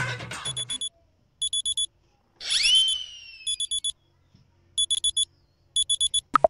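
Electronic alarm clock beeping in quick groups of four high beeps, five groups in all. About two and a half seconds in, a loud whistling call rises and then slowly falls in pitch, and a sharp click comes just before the end.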